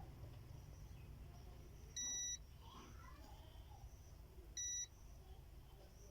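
Two short electronic beeps, one about two seconds in and a shorter one a little over half a second before the end, each a single steady high tone.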